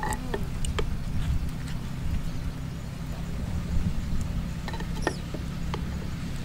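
Metal ladle clinking against a clay cooking pot and a leaf bowl as soup is dipped out, a few light knocks in the first second and again near the end, over a steady low hum.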